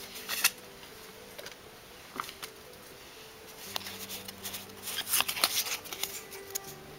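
Pokémon trading cards handled and slid against one another: a few scattered rustles and clicks near the start, then a denser flurry of card rustling about four to six seconds in.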